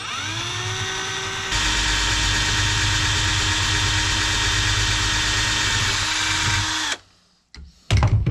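Cordless drill spinning up to a steady whine, then boring through the thin wooden ornament from about a second and a half in, a louder, rougher run that stops around seven seconds. A couple of brief knocks near the end.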